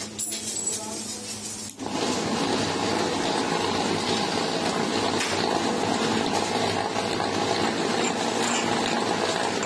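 A thin steel drum body turning in the rollers of a beading machine as a bead is rolled near its rim: a loud, steady metallic rattling and scraping that starts suddenly about two seconds in, over the machine's running drive.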